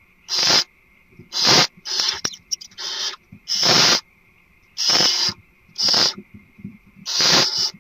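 Barn owl giving repeated harsh hissing calls, about eight short hisses roughly a second apart, with a few sharp clicks between them about two and a half seconds in.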